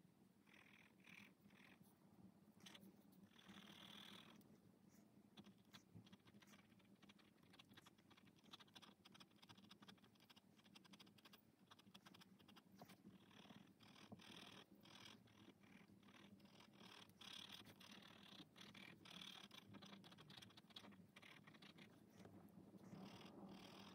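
Faint scratching of a felt-tip marker on sketchbook paper in patches of quick back-and-forth colouring strokes, over a low steady hum.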